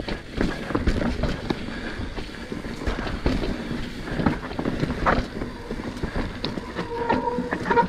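Mountain bike rolling over a rocky dirt trail: tyres on rock and dirt, with a rumble and frequent knocks and rattles from the bike. A humming tone joins near the end.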